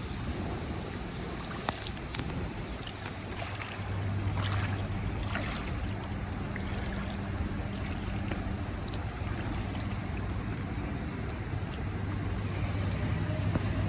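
A motor running with a steady low hum over a constant hiss, with a few faint clicks.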